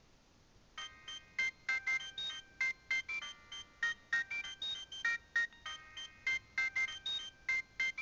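A Nokia 7200 phone plays a polyphonic ringtone. After a short pause, a new tune starts about a second in: short, high-pitched electronic notes in a quick, regular rhythm, about three a second.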